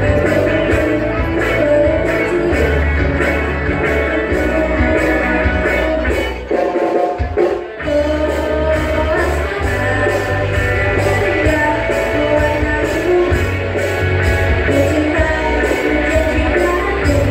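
Rock song with singing played loud through a sound system during a sound check, with heavy bass. The music dips briefly about seven seconds in.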